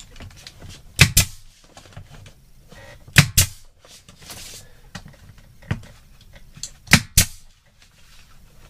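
Nail gun firing nails up into a shiplap ceiling board, sharp shots mostly in quick pairs, about seven in all.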